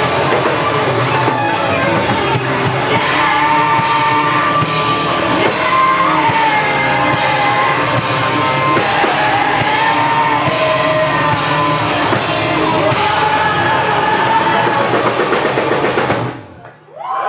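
Rock band playing live: drum kit and guitars, loud and dense, with a wavering melody line above. The music drops away suddenly near the end.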